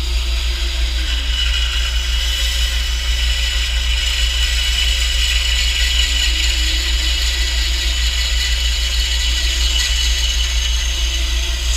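Bandsaw running steadily with a low motor hum while its blade cuts through the wooden mandolin neck in one slow, continuous cut for a dovetail pin. A higher hiss from the cutting comes in about a second in and holds.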